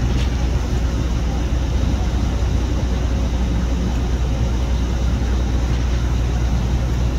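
A large engine running steadily, a constant low rumble with a haze of noise above it.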